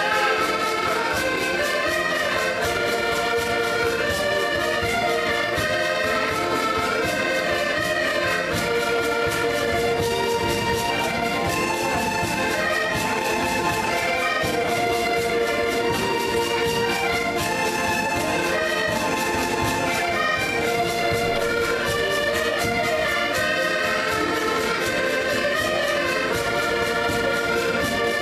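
An ensemble of accordions playing a tune together in sustained chords and melody, with a tambourine keeping a steady beat.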